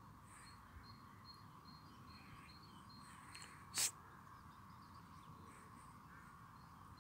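Quiet waterside ambience: distant small birds chirping now and then over a faint steady hum, with one brief sharp high-pitched sound a little past halfway.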